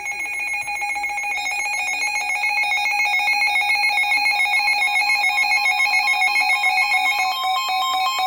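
Emergency Alert System attention signal announcing a tornado warning: a loud, steady two-tone electronic alarm pulsing rapidly, its pitch shifting slightly about seven seconds in.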